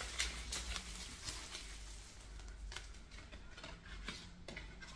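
The wrapper and paper sleeve of a CD single being opened by hand: faint crinkling and rustling with scattered small clicks.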